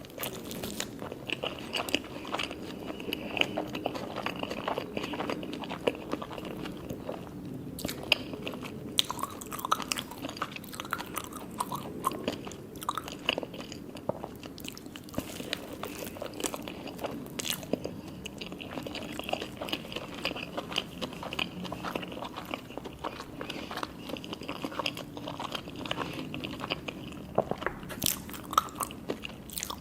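Close-up eating sounds: crisp nori sushi cones being bitten with sharp crunches and crackles, and steady chewing between bites.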